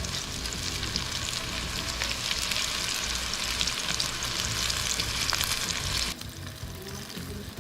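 Ground-beef meatballs sizzling and crackling in hot oil in a frying pan as they are seared brown. The sizzling drops away suddenly about six seconds in.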